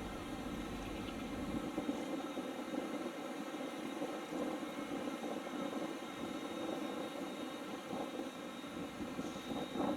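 A steady mechanical drone, like a distant engine running, with several even tones held at a constant pitch.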